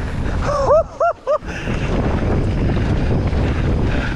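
Wind buffeting the camera microphone over the rumble of a mountain bike riding down a wet trail. About a second in, the rush drops out briefly and three short pitched hoots rise and fall in quick succession.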